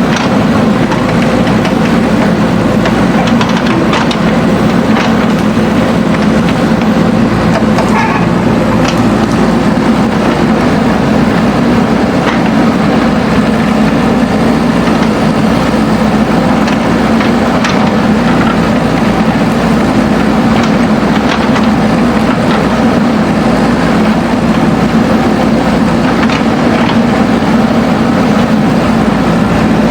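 Diesel engine of a JCB backhoe loader running steadily under work, with a few sharp knocks scattered through.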